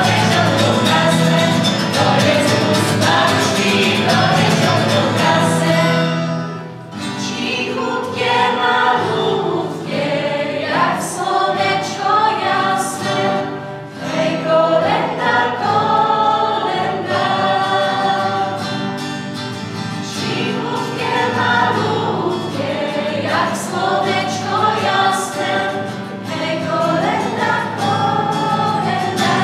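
School choir of teenage boys and girls singing a song together over a steady low accompaniment, with short breaths between phrases about seven and fourteen seconds in.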